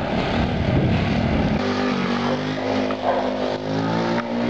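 Honda Z50 mini bike's small four-stroke single-cylinder engine running, rough and noisy at first, then settling into a steady note about a second and a half in.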